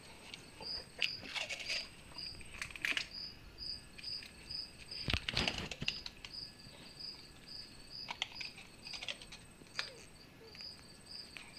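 Duct tape being pulled off the roll and wrapped around a PVC pipe, with short ripping rasps and crinkles, the strongest about five seconds in. Under it a cricket chirps steadily, about three chirps a second.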